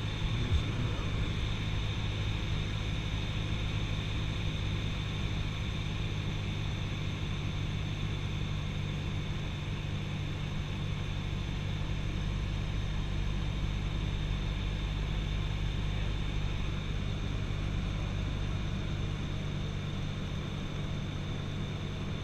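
Cessna 172SP Skyhawk's four-cylinder Lycoming engine and propeller droning steadily in cruise-power flight, heard inside the cabin. There is one brief thump about half a second in.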